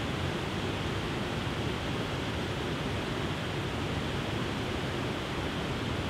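Waterfall cascading over rock ledges into a pool: a steady, even rush of falling water.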